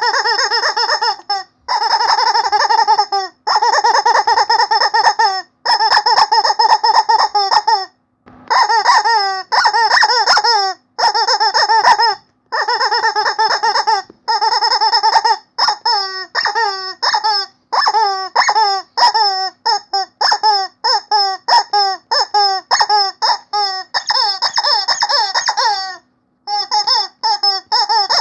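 Rubber squeaky chicken toy squeezed over and over: runs of rapid squeaks broken by short pauses, turning into shorter, separate squeaks about two a second in the second half.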